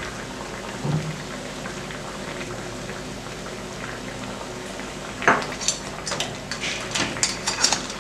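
Crab curry bubbling at a simmer in a stainless steel pan. From about five seconds in, a spatula stirs it, knocking and scraping against the pan in a run of clicks and clinks.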